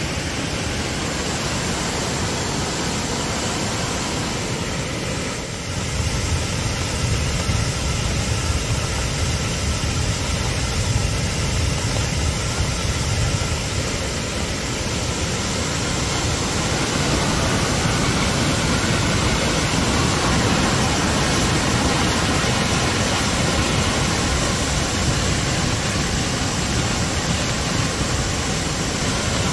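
Steady rushing of a swollen river in flood, a dense noise with a deep rumble underneath, getting louder about five seconds in.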